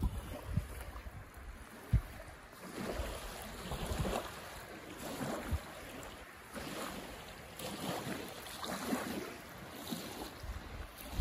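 Wind gusting over a lake, with small waves lapping on a sandy shore and bushes rustling, the noise swelling and fading in uneven surges. A few low buffets of wind on the microphone, the sharpest about two seconds in.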